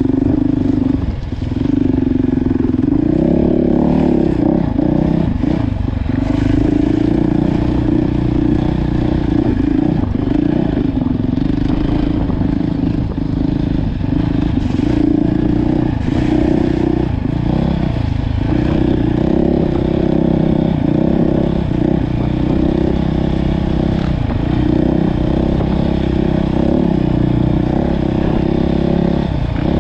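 Off-road dirt bike engine heard close up from the rider's own bike, running steadily under throttle with repeated brief dips in pitch as the throttle is rolled off and back on.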